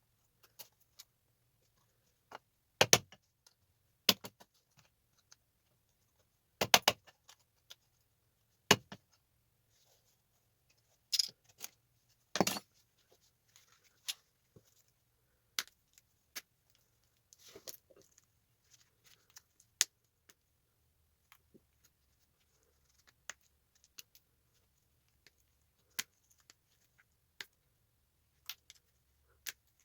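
Irregular sharp metallic clicks and clacks as small tactile switches are worked off circuit boards by hand, with about half a dozen louder clacks and many faint ticks between them.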